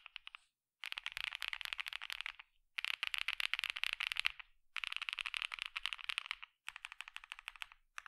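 Fast typing on a LuminKey75v2 aluminium mechanical keyboard: four bursts of rapid, dense key clicks with short pauses between. The board is packed with PE, plate and case foam, which gives its typing a generic sound.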